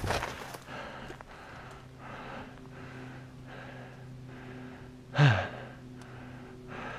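A climbing hiker's quick, regular breathing close to a head-mounted microphone, about two breaths a second, with a louder voiced exhale that falls in pitch about five seconds in.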